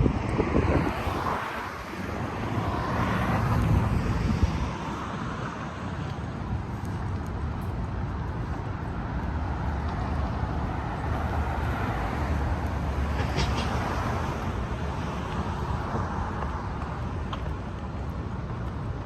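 Street traffic: vehicles passing along a city street, a steady rumble with louder passes in the first few seconds.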